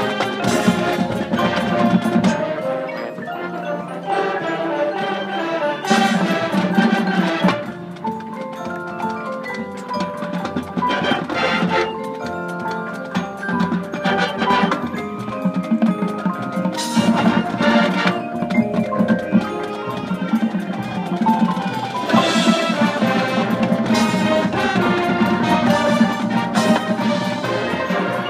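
High school marching band playing its competition show, with mallet percussion such as marimba, xylophone and glockenspiel standing out over the sustained band notes, and several loud crashes.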